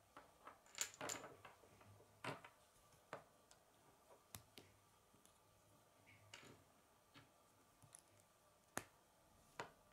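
Plastic K'nex rods and connectors clicking as they are pressed and snapped together by hand: a scattering of small sharp clicks, with a cluster about a second in and two louder ones near the end.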